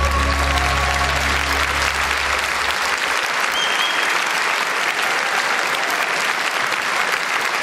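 Audience applauding at the end of a gospel choir's song. The last held chord and a low sustained note fade under the clapping and stop about three seconds in.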